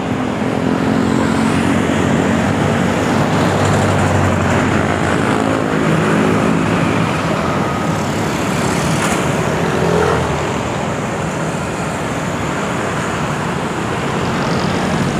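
Road traffic heard from a moving bicycle: a steady rushing noise of wind and road, with a motor vehicle's engine hum alongside that fades out about halfway.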